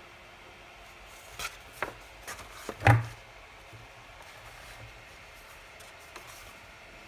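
Watercolor sketchbook paper being handled and a page turned: a few short crinkles and rustles, the loudest with a soft thud on the desk about three seconds in.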